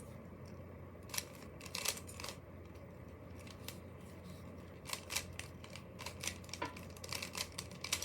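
Plastic Rubik's cube being turned by hand: the layers give quick, irregular clicking in small clusters, with a quieter stretch in the middle.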